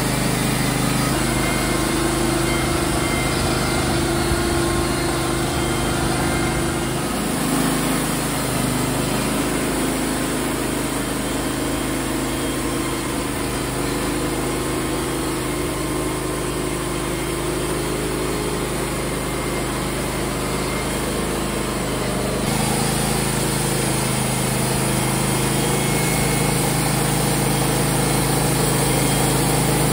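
Wood-Mizer LT35 band sawmill running steadily, its engine driving the band blade through a southern yellow pine cant to cut boards. The sound shifts abruptly about 7 seconds in and again about 22 seconds in.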